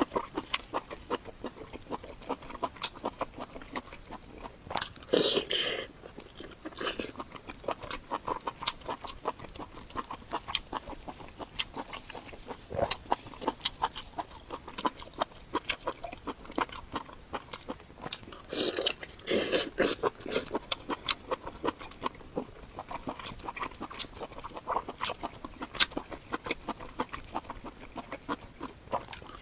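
Close-miked eating: steady chewing and crunching with many small wet mouth clicks, and louder crunchy bites about five seconds in and again near the end of the second third.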